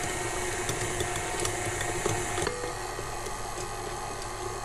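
KitchenAid tilt-head stand mixer running, its beater whipping butter, powdered sugar and milk into buttercream in a glass bowl. The motor hum is steady, then steps down and gets a little quieter about halfway through.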